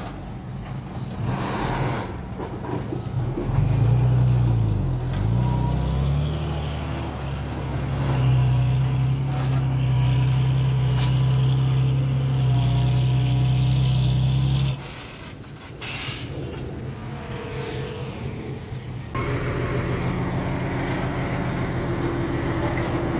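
Heavy diesel engine of earthmoving equipment working under load. Its revs dip and climb back about five seconds in, then it runs hard and steady until it drops off suddenly about two-thirds of the way through. Short sharp air-brake hisses come near the start and again just after the engine drops.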